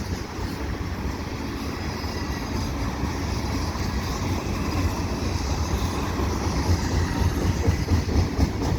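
CN freight train rolling past on the main line: a steady rumble and rattle of the train that slowly grows louder.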